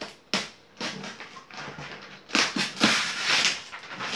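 Cardboard box being torn open by hand: a sharp crack less than half a second in, then scattered rustles and, about halfway through, loud tearing and scraping of cardboard flaps for over a second.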